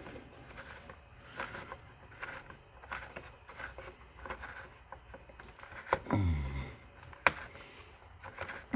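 Small clicks, taps and scrapes of a trickle-charger plug and its washer being handled and fitted into a plastic dash panel, with a sharp click about six seconds in and another just after seven seconds, and a short falling tone around six seconds.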